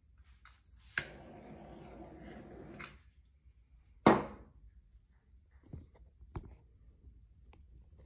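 Handheld butane torch lit with a click about a second in, its flame hissing steadily for about two seconds as it pops bubbles out of poured epoxy resin, then shut off. About a second later a sharp knock as the torch is set down on the table, followed by a few faint ticks and taps.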